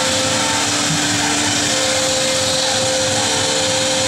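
CNC router spindle cutting through a wooden sheet panel, with its dust extraction drawing air. It makes a steady, loud whine, two held tones over a broad hiss.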